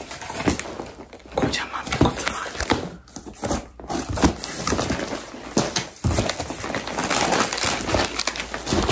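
Cardboard shipping box being opened by hand: flaps pulled and scraped and packing tape ripped in a series of short, sudden rasps. Near the end a crinkly plastic crisp bag is lifted out.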